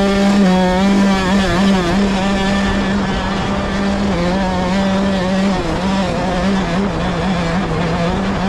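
Off-road vehicle engine running hard at a steady high speed, its pitch dipping slightly about four seconds in and wavering a little after that, over a steady rush of noise.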